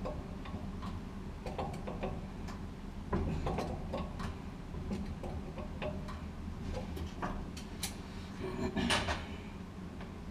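Scattered metal clicks and knocks of dryer parts and hand tools being handled while the new drive motor and pulley are fitted, with a louder clatter about nine seconds in.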